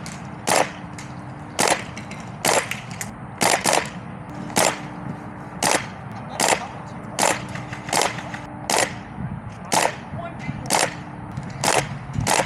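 Airsoft guns fired in single shots, about fifteen sharp cracks at an uneven pace of one to two a second.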